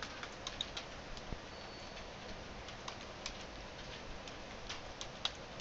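Faint computer keyboard keystrokes: irregular single clicks, a cluster in the first second and more spread through the rest, over a low steady hiss.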